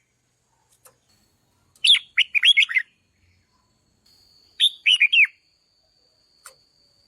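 Red-whiskered bulbul singing two short, quick warbled phrases about three seconds apart. A faint, steady high tone runs beneath the second half.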